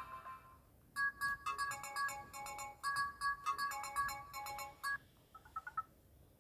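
Built-in tone of an S-TELL C552 Android 6.0 Marshmallow phone: a short, bright electronic melody of chiming notes lasting about four seconds. A brief warbling chirp follows near the end.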